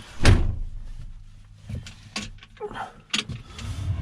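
A sharp knock about a third of a second in and a few light clicks inside a combine harvester's cab, then near the end the combine's diesel engine cranks and catches, a low rumble rising and building.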